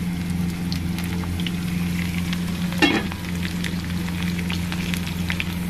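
Sliced onions and homemade desi ghee sizzling and crackling as they fry in a pan for a tadka, with a steady low hum underneath. A brief sharp sound comes about halfway through.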